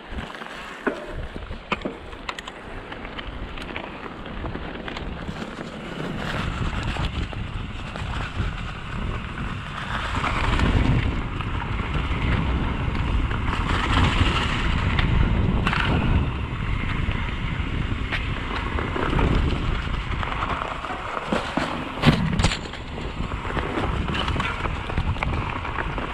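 Mountain bike riding down a forest dirt trail: wind rushes over the camera microphone and the tyres roll and rumble over dirt, leaves and sticks, with scattered clicks and knocks from the bike. The noise grows louder a few seconds in, and there is one sharp knock near the end.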